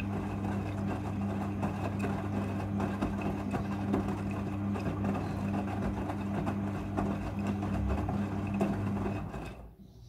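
Front-loading washing machine tumbling a soaking load: a steady motor hum with wet clothes and water sloshing in the turning drum. It stops suddenly near the end.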